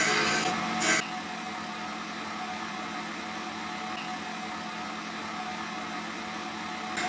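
Wood lathe running with a steady motor hum. For about the first second a hand-held turning tool cuts the spinning wooden pen blank with a loud, scratchy cutting noise, which stops suddenly, leaving only the lathe's hum.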